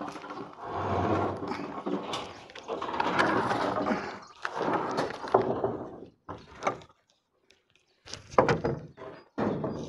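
Wooden boards being moved about on a roof under repair: several seconds of scraping with knocks, then three short separate knocks or bumps near the end.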